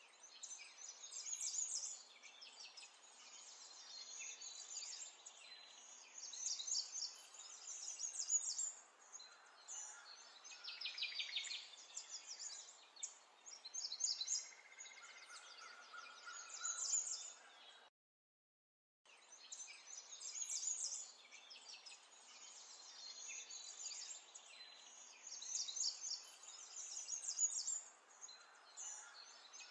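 Wild birds chirping and singing, with many short high calls and quick trills over a faint steady background hiss. The sound cuts out for about a second a little past the middle, then the birdsong carries on.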